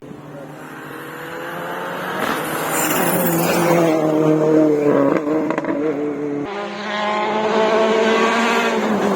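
Rally car engine at high revs, growing louder as the car approaches and goes past, with tyre squeal. About six and a half seconds in the sound changes abruptly to another stretch of hard-revving engine.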